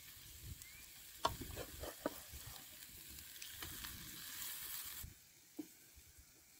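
Herb omelette sizzling in oil in a frying pan, with a wooden spatula scraping and tapping against the pan about a second in. The sizzle drops away about five seconds in.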